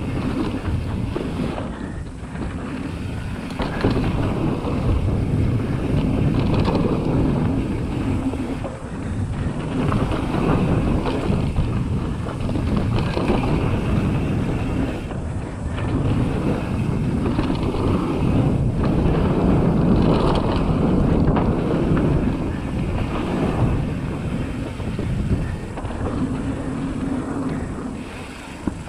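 Mountain bike riding fast down a dry dirt trail: wind buffets the microphone over the tyres on loose dirt and the rattle of the bike over bumps, the noise rising and falling with speed.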